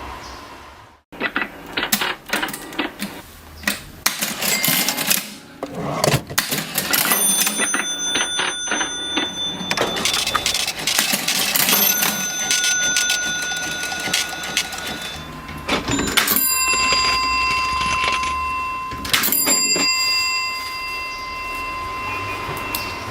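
Vintage mechanical cash register being worked: its keys and levers clatter with sharp clicks and clacks, and its bell rings out several times.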